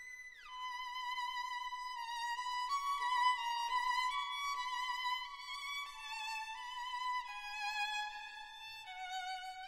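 Background music: a slow violin melody of long held notes with vibrato, with a downward slide into the first note.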